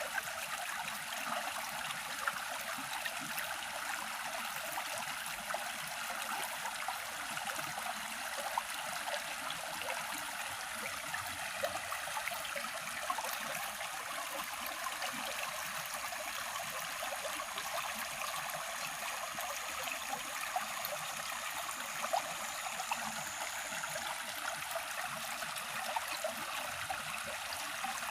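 Steady rush of flowing water, with small crackling splashes throughout.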